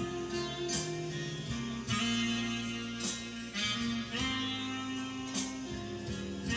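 Instrumental background music, with plucked notes struck about once a second over held tones.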